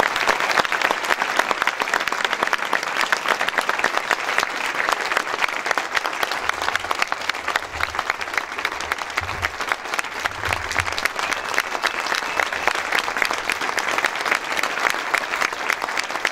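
An audience applauding: many hands clapping in a dense, continuous patter that carries on without a break, slightly louder at the start.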